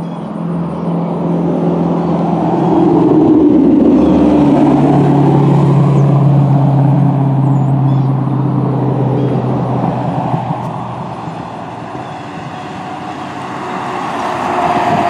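Road traffic passing close by. A heavy engine drone drops in pitch a few seconds in and fades after about ten seconds. Near the end the engine and tyre sound of a pickup truck towing a trailer rises as it passes.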